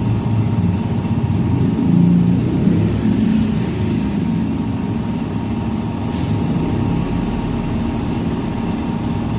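Steady low rumble of vehicle engines and traffic running in the background, with a brief click about six seconds in.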